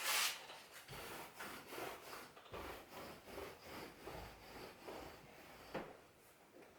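Irregular rubbing and scraping sounds from something being handled, starting with a louder scrape and with a few soft knocks.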